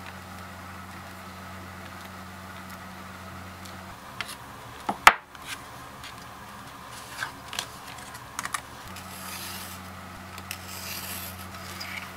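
Tools and a paper pattern handled on a cutting mat: a few light taps and knocks, the sharpest about five seconds in, then a sliding rustle across the mat near the end. A low steady hum runs under the first few seconds.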